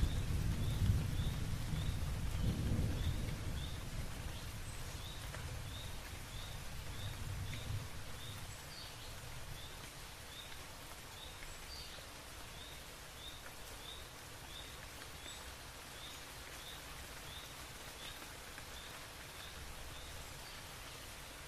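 Rain hissing steadily while a low rumble of thunder dies away over the first several seconds, with a faint high chirp repeating evenly about twice a second.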